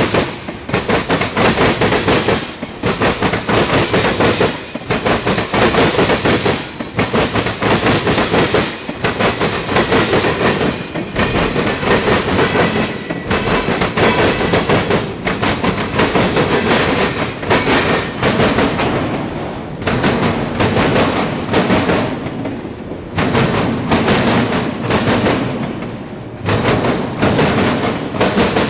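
Mixed freight train of tank cars, boxcars and autorack cars rolling past, loud, its wheels clacking in a steady rhythm over the track.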